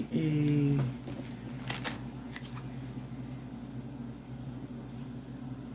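Packaging rustling and crinkling in short bursts as an item is handled and taken out of its wrapping, over a steady low hum.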